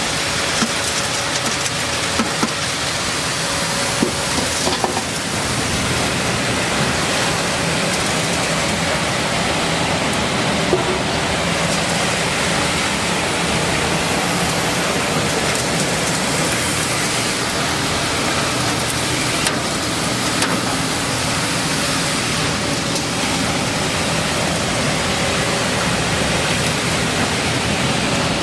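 Maize milling machine running: a steady, loud rushing noise with a faint hum under it and a few small clicks in the first few seconds.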